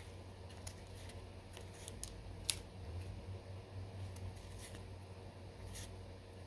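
Baseball trading cards being handled and flipped through by hand: a string of soft, short flicks and slides, with one sharper snap about two and a half seconds in, over a faint steady low hum.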